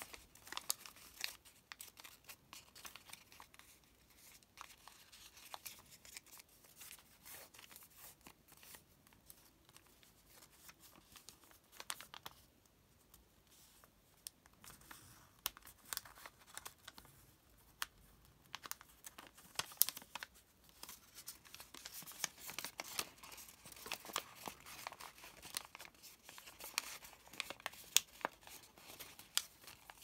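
Origami paper crinkling and crackling as fingers fold and crease it: a stream of small, sharp crackles, briefly quieter about twelve seconds in.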